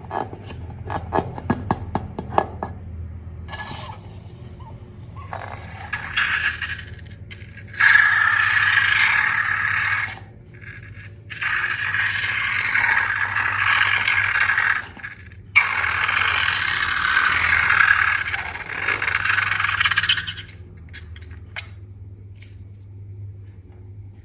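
Slime being worked by hand with mixed-in bits: a run of sharp clicks, then three long stretches of scraping, rustling noise that start and stop abruptly.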